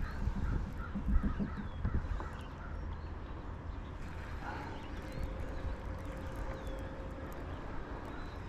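Birds calling with short honk-like calls, several in the first few seconds and another a little later, over a steady low rumble.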